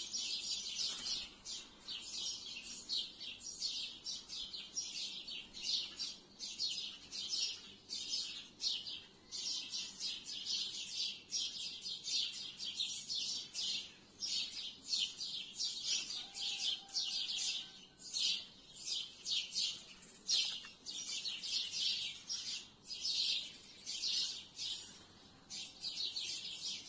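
A flock of sparrows chirping in trees: a dense, continuous chatter of many short, overlapping chirps.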